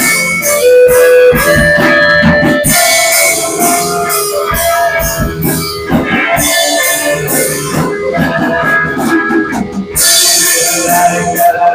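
Live rock band playing an instrumental passage: electric guitar lines over a drum kit, with cymbals swelling about three seconds in and again near the end.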